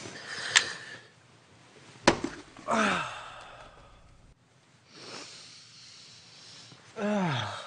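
A person's breathy sighs or moans, two of them, each falling in pitch, with a soft breath between them. Two sharp clicks come in the first couple of seconds and are the loudest sounds.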